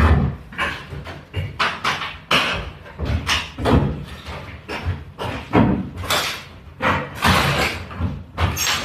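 Old wooden floorboards being levered up and broken out with a long bar: repeated sharp cracks, knocks and clattering of wood, roughly one or two a second and uneven.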